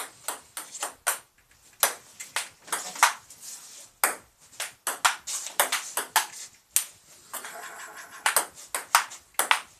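Table tennis rally: a ping-pong ball clicking off paddles and bouncing on the table in quick succession, with a short pause about three-quarters of the way through before the clicks start again.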